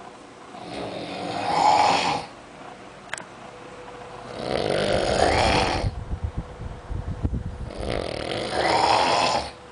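A man snoring heavily in his sleep: three long, loud snores about three and a half seconds apart, the second trailing into a low fluttering rattle.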